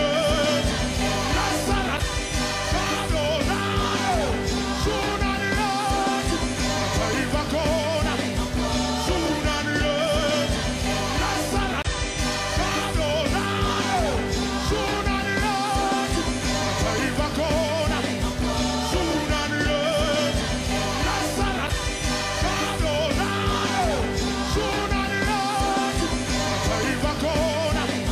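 Background music: a song with a singing voice over a steady, repeating accompaniment.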